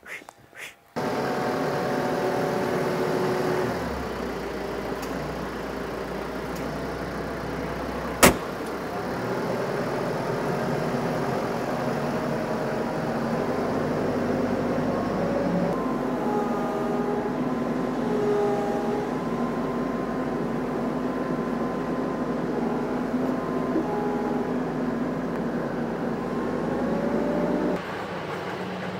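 Tractor engine running steadily, with a single sharp clank about eight seconds in.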